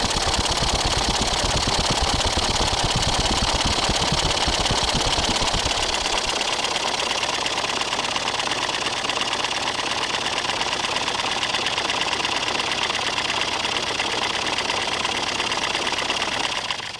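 Single-cylinder overhead-valve small engine, not firing, turned over at about 1000 RPM by an electric bench grinder through a belt: a fast, even mechanical clatter from the exposed rocker arms and valve springs. A low rumble underneath drops away about six seconds in, and the sound cuts off sharply near the end.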